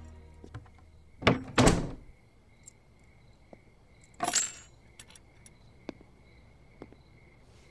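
Brief metallic jangling, twice about a second in and once about four seconds in, with a few soft clicks, over the steady faint chirping of crickets.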